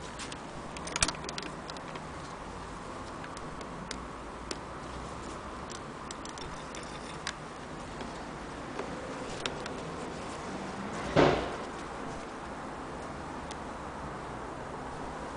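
Scattered light clicks and taps from handling the antique hand-crank Singer sewing machine and the felt, with a small cluster about a second in and a louder brief rustle about two-thirds of the way through, over a steady background hiss.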